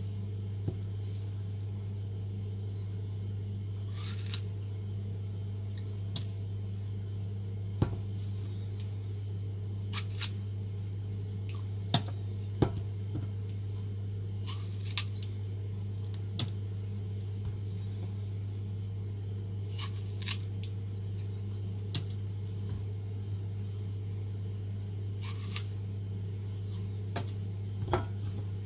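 Scattered light clicks and taps from Holden's red plastic tube strawberry huller as it is pushed through strawberries and handled, about a dozen sharp ticks over a steady low hum.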